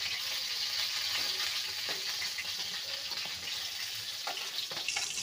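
Refined oil and spiny gourd stir-fry sizzling in a hot pan: a steady frying hiss with a few small crackles.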